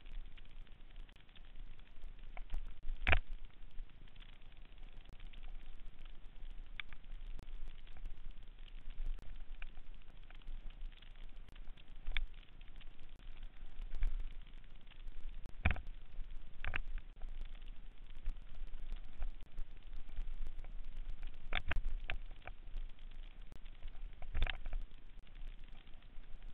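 Mountain bike descending a dirt singletrack: a steady crackling rattle of tyres on the trail and the bike's chain and frame, with sharp knocks over bumps about five times.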